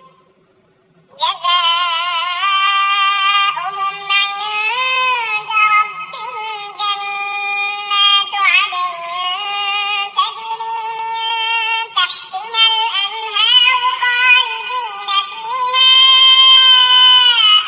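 Quran recitation chanted in a high-pitched, synthetic-sounding voice, with long drawn-out melodic notes that slide up and down. It starts about a second in after a brief silence.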